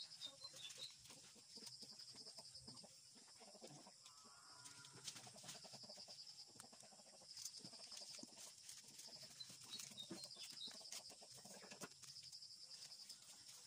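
Faint handling sounds of taro leaves and stalks being picked over and snapped by hand, a few soft clicks and rustles, over a steady high hiss. A brief faint animal call comes about four seconds in.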